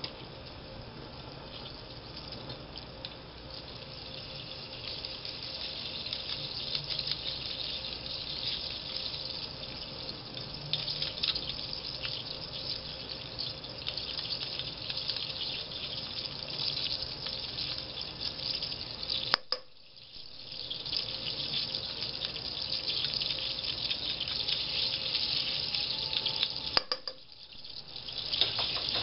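Garlic frying in hot olive oil, a steady crackling sizzle that grows louder over the first few seconds. The sound cuts out briefly twice, about two-thirds of the way through and near the end.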